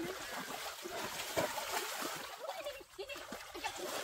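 Water splashing and sloshing, with many short plops and gurgles.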